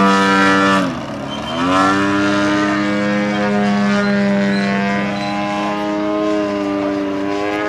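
Engine of a giant-scale 108-inch Extra 330LT aerobatic model plane in flight. Its pitch drops sharply about a second in, climbs back within a second, holds steady, and begins to fall again near the end.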